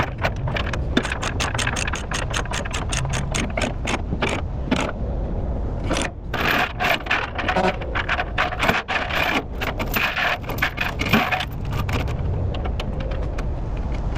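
Steel load chains clinking and rattling against each other and the trailer as they are handled and tightened to chain down an excavator. There are rapid runs of sharp metal clicks throughout, over a steady low rumble.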